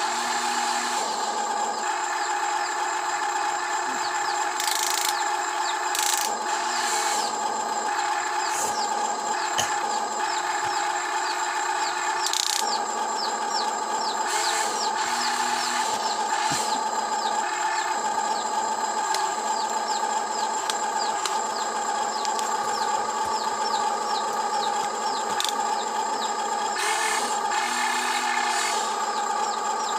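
Huina 1592 RC excavator's electric motors whining steadily as it works its arm and bucket, with a lower motor note that cuts in and out as different functions start and stop.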